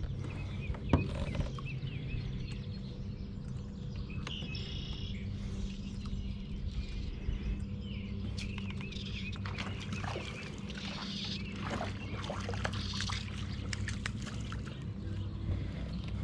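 Birds chirping and calling outdoors over a steady low hum, with a sharp knock about a second in.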